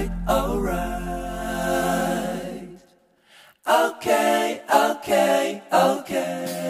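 Background music with singing: a long held sung note over a low drone, a brief silence a little before halfway, then a run of short sung phrases.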